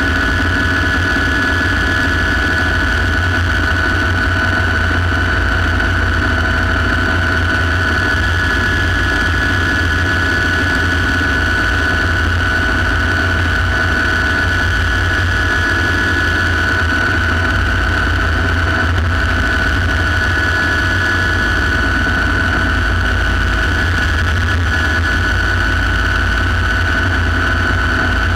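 Light turbine helicopter in flight, heard from inside the cockpit: a steady high turbine whine over strong low rotor noise.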